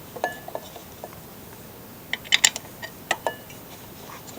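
Light metal clinks and taps, a few scattered ones and then a quick cluster of louder ones about halfway through, as a replacement blade-clutch pulley is worked into place on a Toro Super Recycler mower.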